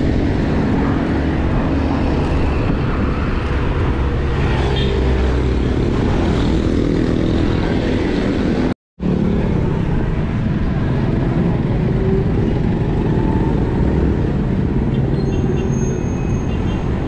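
Wind rushing over the microphone of a cyclist's camera while riding along a road, mixed with motor traffic. The sound cuts out completely for an instant about nine seconds in.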